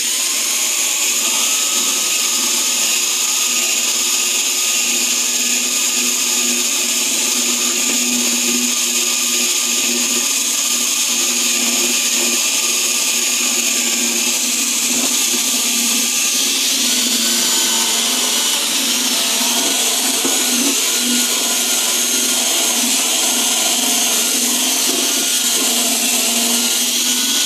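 Milwaukee drill spinning a polishing pad with compound against a plastic truck tail-light lens, running steadily at slow speed with a motor whine, buffing off paint scuffs and oxidation. The whine shifts slightly in pitch about two-thirds of the way through.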